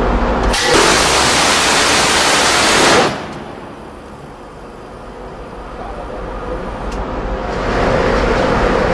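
Phalanx CIWS 20 mm six-barrel gatling gun firing one continuous burst of about two and a half seconds, starting about half a second in, over a steady mechanical hum. The hum drops away after the burst and swells back near the end.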